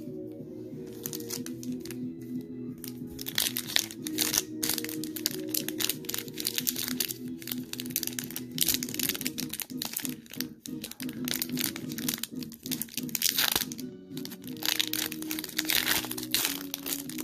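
Foil booster-pack wrappers crinkling and crackling in irregular bursts as a pack is handled and opened, over steady background music.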